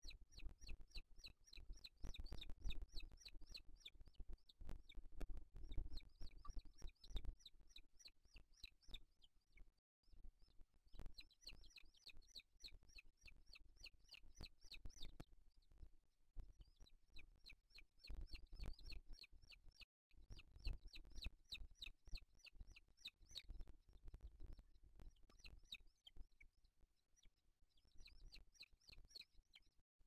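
Booted eagles calling at the nest: runs of rapid, short, high notes lasting several seconds each, repeated over and over, faint, with a low rumble underneath.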